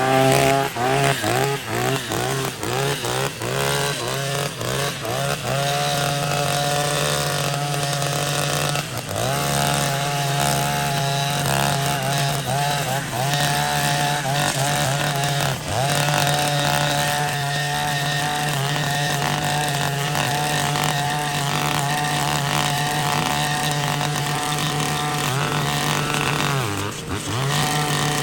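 Two-stroke engine of a gas string trimmer/brush cutter fitted with a cutting blade, revving up and down in quick throttle blips at first, then held at high speed with a few brief dips in revs.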